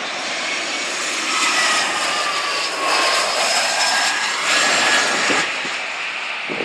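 Jet airliner passing close by, its engines roaring loudly with a whine that falls in pitch as it goes past.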